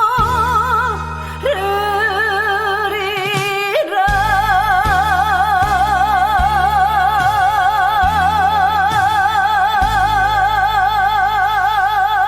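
The final bars of a Korean trot song: a melody line rises through a short phrase, then holds one long note with wide vibrato over steady bass and synth backing.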